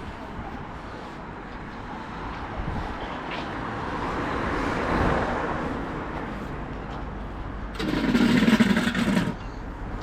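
Passing road traffic: a car goes by, swelling and fading around the middle, then a loud noisy burst lasting about a second and a half near the end.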